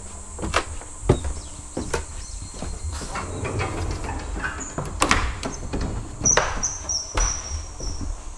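Footsteps knocking on wooden flooring at a walking pace while a sliding door is opened on its track, with a high squeal in the second half.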